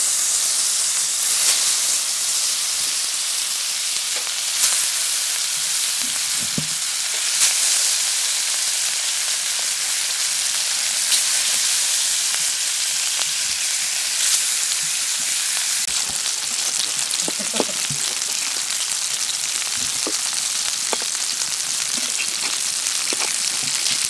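Tilapia pieces shallow-frying in hot oil in an aluminium karahi, a steady sizzle that flares louder every few seconds as another piece is laid into the oil. In the second half, light clicks of a metal spatula against the pan.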